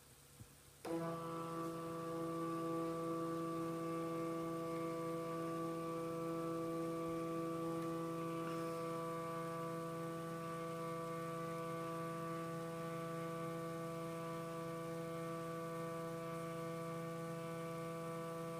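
Brother PocketJet 3 thermal printer printing a page: its paper-feed motor starts about a second in and runs with a steady, even-pitched hum as the sheet feeds through.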